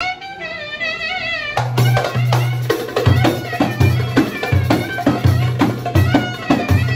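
Turkish Romani street band playing live: a clarinet plays a wavering, ornamented melody on its own, then about a second and a half in the drums come in, deep bass-drum strokes with frame drum and darbuka beats in a steady dance rhythm under the clarinet.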